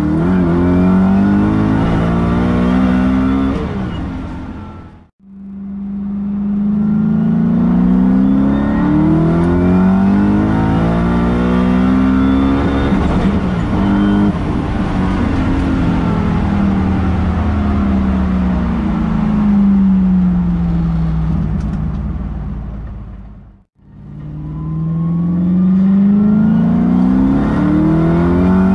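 Twin-turbo 4.2-litre 40-valve Audi V8 pulling hard, heard from inside the cabin, its note climbing with the revs and dropping back at each gear change. The sound cuts out sharply twice, about five seconds in and near the end.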